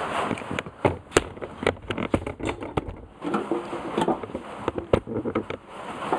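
Irregular clicks, taps and light scraping of hands and a screwdriver working wires into the switch opening on a cement mixer's housing.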